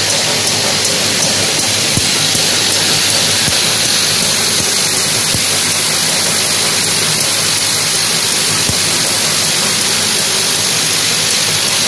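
Vibratory bowl feeder of a pharmaceutical tablet strip packing machine running, hundreds of tablets jostling against the stainless-steel bowl in a steady hissing rattle.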